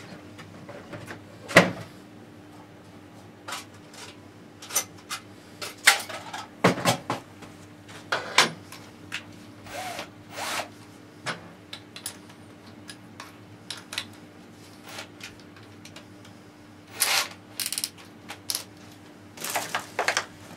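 Tools and hardware being handled: irregular clicks, knocks and short rattles, with a few louder clusters near the end, over a faint steady hum.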